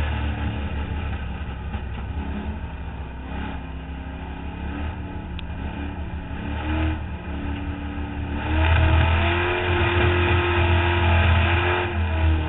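A competition car's engine heard from on board, running lighter for several seconds and then accelerating hard and louder from about two-thirds of the way in, with a brief dip near the end.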